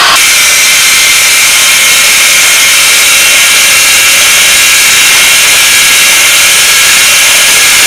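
Electric hand mixer running steadily at speed, its twin beaters whipping heavy cream and condensed milk in a bowl.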